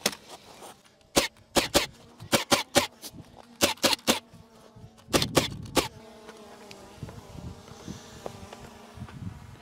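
Steady buzzing hum of a quadcopter drone's propellers, with a quick run of about a dozen sharp knocks in small clusters through the first half.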